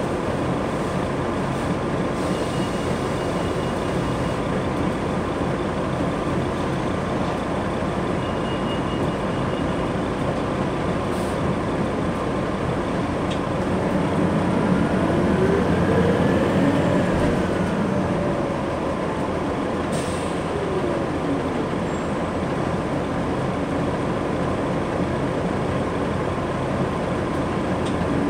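Inside an articulated diesel transit bus under way: steady engine and road rumble from its Detroit Diesel Series 50 engine and Allison automatic transmission. About halfway through, a whine rises and then falls in pitch, and the noise gets a little louder.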